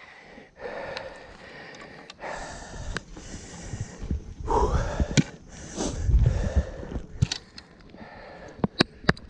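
A man breathing hard and gasping, out of breath from exertion, with a run of sharp clicks near the end.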